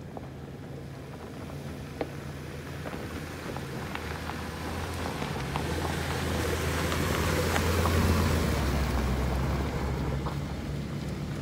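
Subaru Outback with a rooftop tent driving past on a rocky dirt road, its engine growing louder to a peak about eight seconds in and then fading, with scattered clicks of stones under the tyres. A second SUV, a Nissan Xterra, is approaching near the end.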